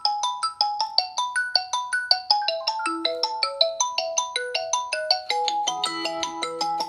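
Ringtone melody playing from a Xiaomi Redmi 9A phone: a fast run of bright, short notes, about five a second, with lower held notes joining about five and a half seconds in.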